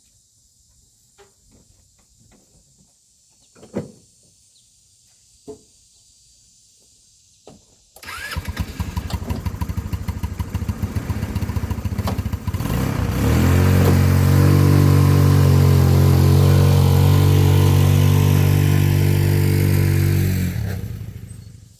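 A few faint knocks, then a vehicle engine starts about eight seconds in and runs with a rapid uneven pulsing. From about thirteen seconds it revs hard and steady for some seven seconds as the stuck vehicle tries to drive out of deep mud, then dies away.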